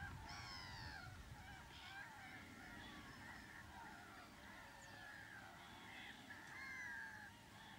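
A distant flock of large waterbirds calling, many overlapping calls at once, faint.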